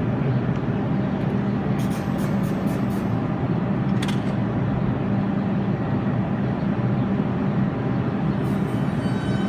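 R142 subway train running steadily, a low hum over continuous wheel-and-rail noise, with a quick run of sharp clicks about two seconds in and another about four seconds in. Near the end, high-pitched wheel squeal begins.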